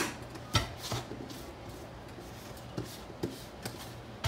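Light knocks and clicks of kitchen items being handled and set down, a handful of separate taps over a few seconds.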